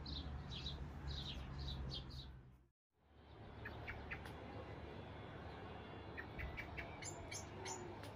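Small birds chirping: a run of quick, repeated downward chirps over a low rumble, then a brief cut to silence about three seconds in, followed by scattered short, high chirps.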